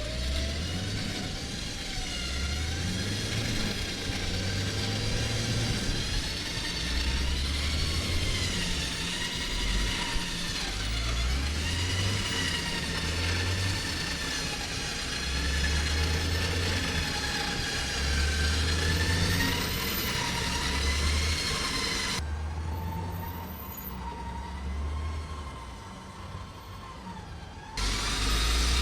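Vehicle engines working under heavy load to pull a bogged Tank 500 SUV out of a wetland, with a whine that wavers in pitch over an uneven low rumble. The sound turns quieter and duller for several seconds near the end.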